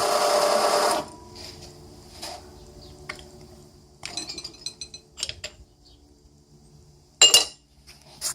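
A steady motor sound cuts off about a second in, followed by light clinks and taps of glass pieces knocking together, a quick cluster of them about four seconds in and the loudest, sharp clink near the end.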